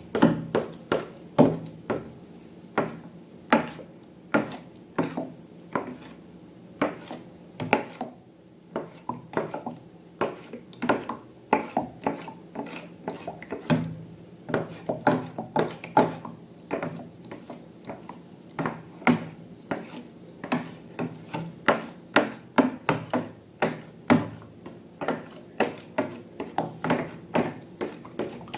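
Objects being handled while slime is made: a steady run of irregular sharp taps and clicks, a few each second.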